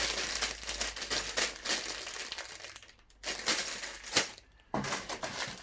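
Plastic bags of Lego pieces rustling and crinkling as they are handled, the loose bricks inside clicking, with a sharp crack a little after four seconds.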